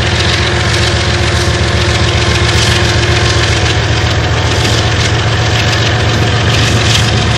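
Diesel-electric freight locomotive's engine running steadily under power as the locomotive pulls away, with an even low throb and a rushing noise over it.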